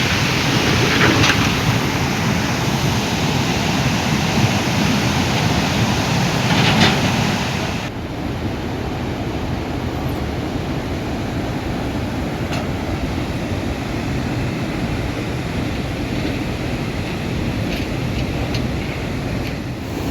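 Steady rushing noise of fast-flowing floodwater. About eight seconds in it changes abruptly to a slightly quieter, duller rush.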